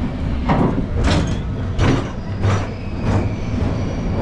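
Big Thunder Mountain Railroad mine-train roller coaster rolling along with a steady low rumble. Five short hissing swooshes come through over it, roughly one every two-thirds of a second.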